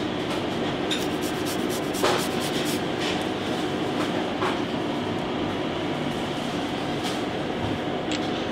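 Steady mechanical hum of kitchen ventilation, with a few light clicks and scrapes of a microplane grater against a stainless steel bowl as garlic is grated and pushed off it.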